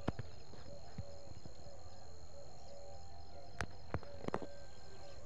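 Steady high insect chorus, with a short call repeating about every half second beneath it and a few sharp clicks, most of them grouped in the second half.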